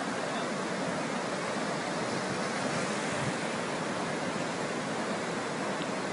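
Fast-flowing flash floodwater rushing past, a steady, even wash of water noise.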